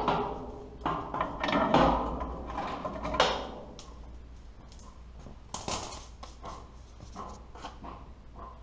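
Clanking and knocking of metal tools and parts being handled at the steel drive sprocket and chain of a lime spreader, busiest and loudest in the first three seconds, then only scattered quieter clicks.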